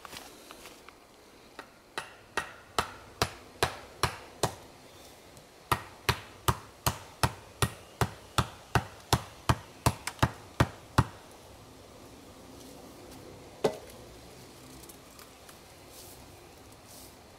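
A wooden stake being driven into the ground with hard knocks from a hatchet. There are about two and a half knocks a second in two runs with a short pause between, then one lone knock a few seconds later.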